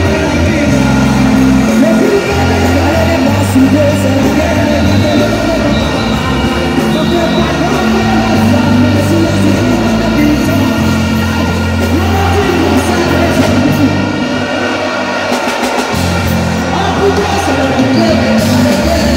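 Music with a heavy bass line and a steady beat; the bass drops out briefly about fifteen seconds in, then returns.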